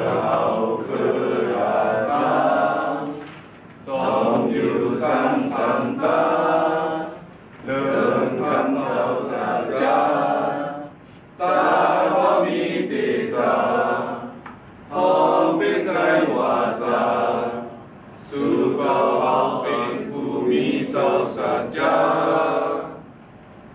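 A group of men singing a song together, unaccompanied, in phrases of a few seconds separated by short pauses.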